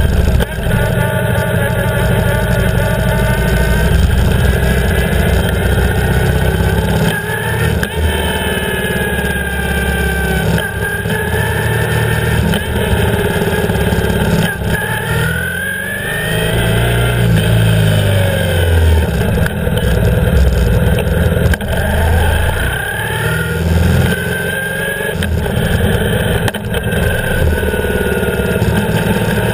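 BMW R 1150 GS's air/oil-cooled flat-twin boxer engine running as the bike rides along at low speed, rising and falling in pitch. The engine eases off about halfway through, then picks up again.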